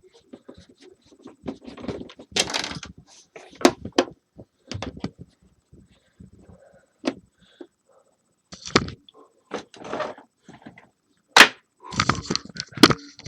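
Irregular knocks, clicks and rattles of a space heater's casing and parts being handled and taken apart, with gaps between them and the sharpest clacks near the end.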